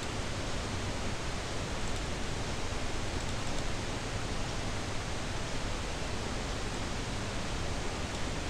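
Steady, even hiss of background noise, with a few faint clicks about two and three and a half seconds in.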